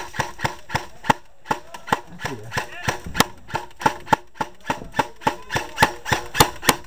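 Airsoft rifle firing single shots in a steady string of sharp clicks, about three to four a second.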